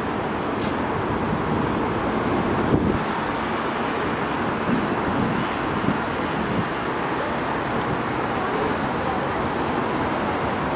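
Steady outdoor roar of city road traffic, with low wind rumble on the microphone.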